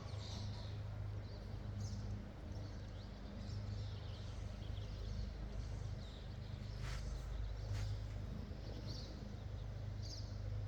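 Outdoor ambience: faint, scattered high chirps of small birds over a steady low hum, with two short clicks about seven and eight seconds in.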